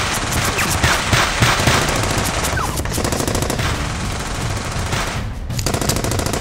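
Rapid, sustained automatic gunfire sound effects from a staged gunfight, a submachine gun and pistols, with a brief pause about five seconds in before the firing resumes.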